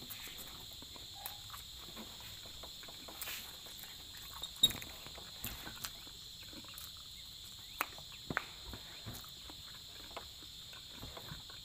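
Steady high-pitched chirring of insects, likely crickets, in the background, with scattered small clicks and smacks of someone eating by hand: chewing, and fingers picking rice and chicken off a plate. A sharp click about four and a half seconds in is the loudest sound.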